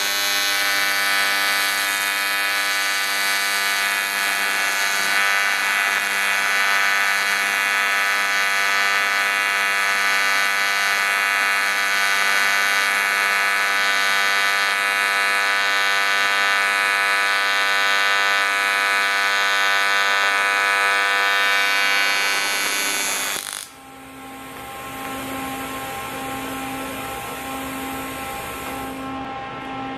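TIG welding arc on aluminum, buzzing steadily for about 23 seconds and then cutting off suddenly when the arc is broken. A fainter hum with a soft regular pulse follows.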